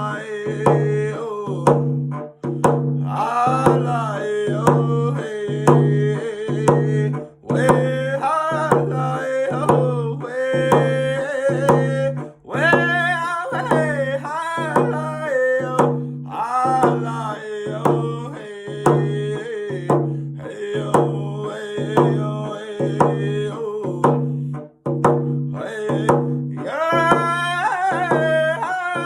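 A man singing a Native round dance song over a steady, even drum beat.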